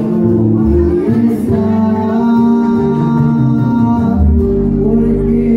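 Music with singing over a steady bass line, played over the party's sound system.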